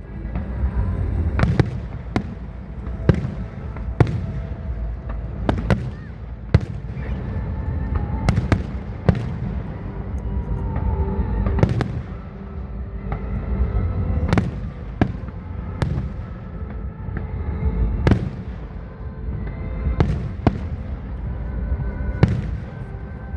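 Aerial fireworks shells bursting in a display: a long run of sharp bangs, some close together, at irregular intervals over a steady low rumble.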